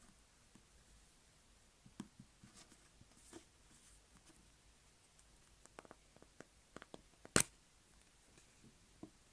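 Galaxy slime being handled, making scattered soft sticky clicks and pops, with a quick run of them about six seconds in and one sharper pop just after.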